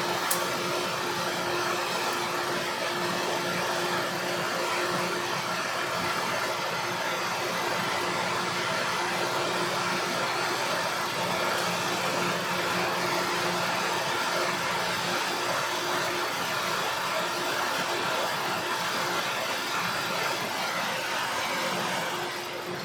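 Torch flame hissing steadily as it heats a brass sleeve to a black heat of about 400 to 500 degrees. A sharp click comes just after the start, and the hiss eases near the end.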